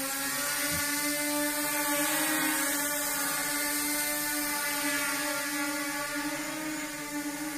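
Autonomous inventory quadcopter drone flying, its caged propellers giving a steady buzzing whine over a rushing hiss. The pitch wavers slightly as it manoeuvres.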